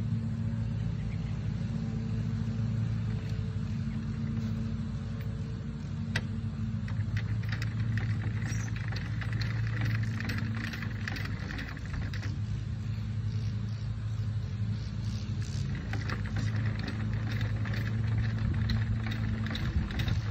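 Steady low engine hum, like a motor vehicle idling. From about seven to twelve seconds in and again from about sixteen seconds, runs of rapid clicking as the casket lowering device is worked by hand.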